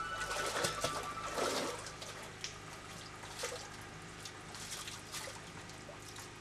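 Water dripping and splashing down a well shaft, irregular drops and small splashes around a bucket hanging on a rope above the water. The last of a music track fades out in the first second.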